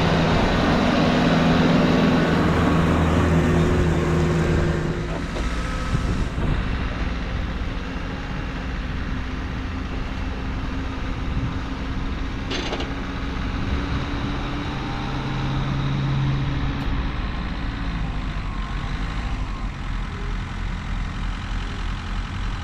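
A vehicle engine running steadily, louder for about the first five seconds and then a little quieter, with one short sharp knock about halfway through.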